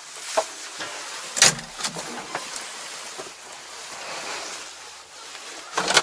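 Tractor cab door clicking and knocking as it is unlatched and swung open, with a sharp knock about a second and a half in and a louder rattling double knock near the end.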